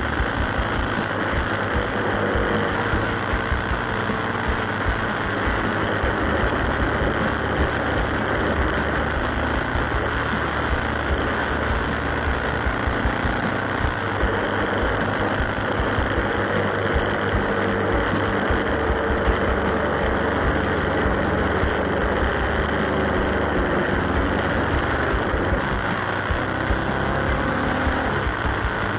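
Motorcycle engine running at road speed under heavy wind rush on a bike-mounted action camera, the engine's pitch rising and falling a little.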